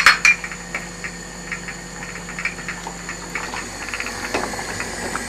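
Soup being ladled from a pot into a glass cup: a couple of sharp clinks of the ladle against the pot at the start, then soft scattered ticks and splashes over a steady low hum.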